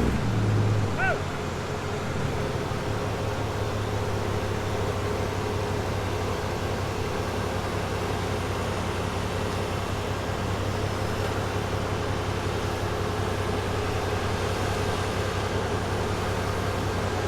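A motor running steadily at an even pitch, with no changes in speed.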